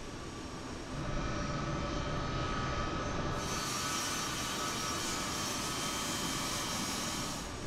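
Jet engines of a U.S. Air Force C-17 Globemaster III running on the ground: a steady turbofan whine over a wide hiss, coming in about a second in. The hiss grows brighter about three seconds in and drops away just before the end.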